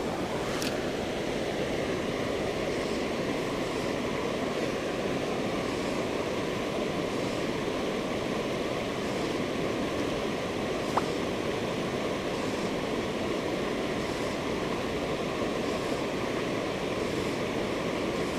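Fast-flowing creek water rushing steadily over rocks, with a single faint tick near the middle.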